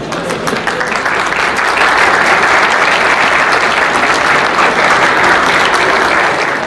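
Audience applauding: dense clapping that swells about a second in, holds steady and dies away at the end.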